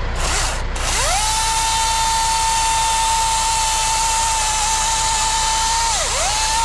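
Milwaukee battery-powered chainsaw's electric motor and chain spinning up about a second in, then running at a steady high whine. Near the end the pitch dips sharply and climbs straight back.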